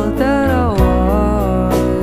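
Background music: a melody line that glides up and down in pitch over steady low bass notes.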